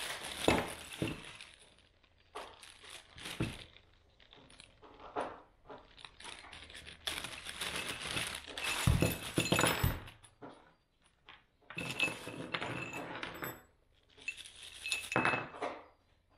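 Plastic bags of small metal fixings being handled and opened, the plastic crinkling in irregular bursts, with bolts and brackets clinking against each other and onto the bench as they are tipped out.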